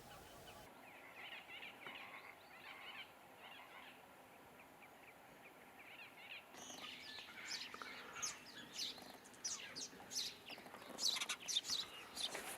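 Wild birds chirping and calling. About halfway through, a dense run of sharp, quick high-pitched calls sets in, loudest near the end.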